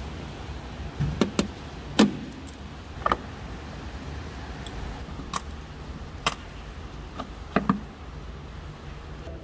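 Tools clinking and knocking against metal tractor parts: about eight sharp, irregular strikes over a low steady hum.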